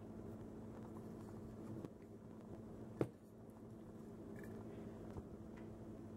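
Faint room tone with a steady low hum, broken by one sharp click about three seconds in and a few softer handling clicks.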